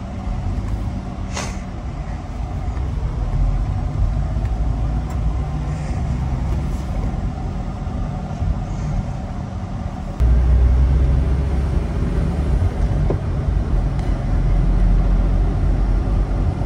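Kei truck engine and road noise heard from inside the cab as the truck drives off, its engine oil freshly dosed with a molybdenum additive. A steady low rumble that steps up louder about ten seconds in.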